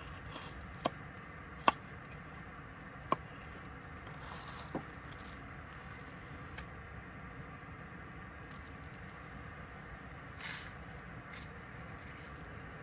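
A few sharp clicks and taps, the loudest about two seconds in, over a steady low hum, then two soft brief rustles near the end.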